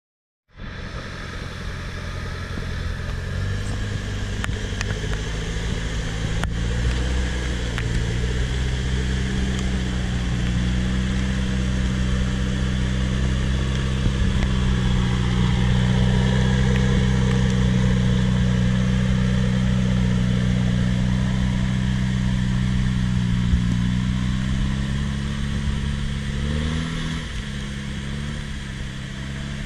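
Engine of a six-wheeled off-road truck running hard under load as it climbs a muddy trail. It starts after a moment of silence, its pitch steps up over the first few seconds and then holds steady, and shifts down and back up again near the end.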